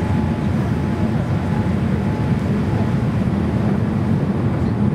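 Steady low rumble of cabin noise inside a Boeing 787-8 airliner descending to land: engine and airflow noise heard from a seat over the wing.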